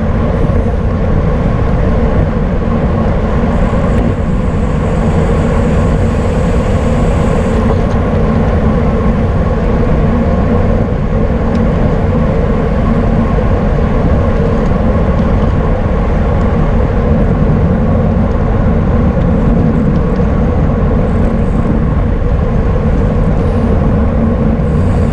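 Loud, steady wind rushing over a racing cyclist's camera microphone, with a faint thin high whine from about four to eight seconds in.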